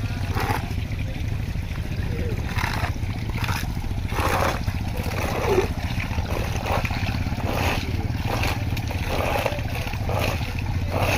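A heavy vehicle's engine idling steadily, with crude palm oil splashing as it pours from an overturned tanker onto the road. Voices talk in the background.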